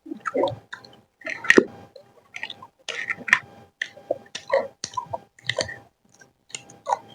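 Close-miked eating sounds: irregular wet chewing, smacking and slurping of carbonara noodles and fries, with a sharper click about one and a half seconds in.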